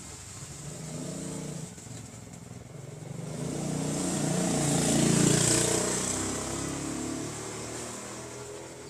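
A motor vehicle passing by, growing louder to a peak about five seconds in and then fading away.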